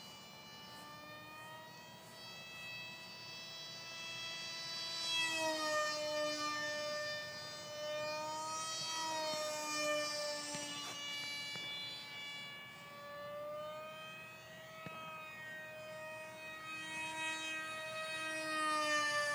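Radio-controlled model airplane's small propeller engine running as it flies overhead: a steady, high whine whose pitch wanders up and down. It grows louder about five seconds in and again near the end, where the pitch drops as it passes.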